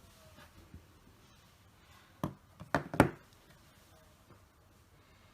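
Three short knocks, about two and three seconds in, the last the loudest, over quiet room tone.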